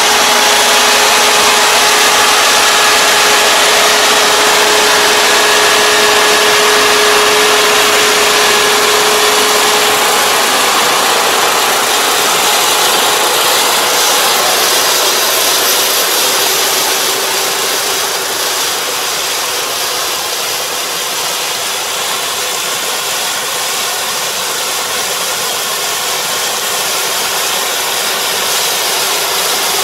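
Kubota four-row combine harvester running steadily while cutting lodged rice: a constant engine and machinery drone with a held whine, growing a little quieter about two-thirds of the way through as the machine moves away.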